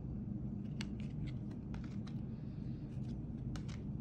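Faint, scattered ticks and slides of glossy trading cards being handled, turned over and moved through a stack, over a steady low background hum.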